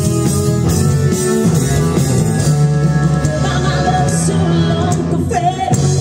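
Live rock band playing: a woman singing over electric guitars and drums.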